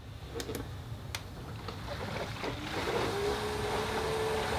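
Electric intercooler coolant pump on a Cadillac twin-turbo V6 starting up. There is gurgling of coolant and air that grows louder, and a steady pump whine sets in a little past halfway. The gurgling shows that air bubbles are still left in the intercooler circuit after repeated bleeding.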